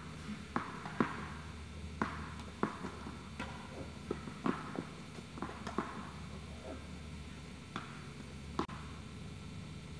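Light, sharp knocks at irregular intervals, about one a second, on an indoor tennis court, over a steady low hum. The loudest knock comes about a second in.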